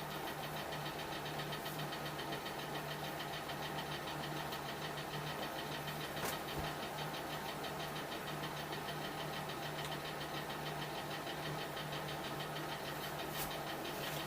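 Shop heater running with a steady mechanical drone and hum; a faint click about six seconds in.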